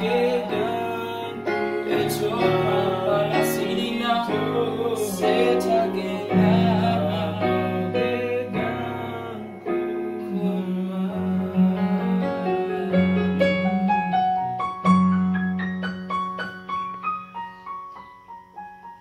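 Electronic keyboard playing in a piano voice over a steady bass line, with a man singing over it for roughly the first half. Later the keyboard alone plays rippling piano runs that grow quieter as the song ends.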